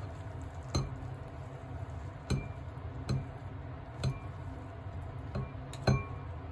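Wooden chopsticks clinking against the side of a pot as ramen noodles are stirred: about six light knocks at uneven intervals, each with a brief ring, the loudest near the end, over a steady low hum.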